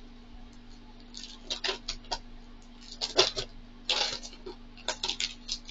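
Scissors cutting open a small paper mailer package, with irregular short snips, crinkles and rustles of the packaging.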